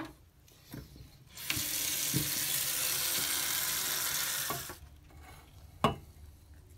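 Tap water running in a stream into a shallow tray of water to wash a salt print. It starts about a second and a half in and stops after about three seconds, and a single sharp knock follows near the end.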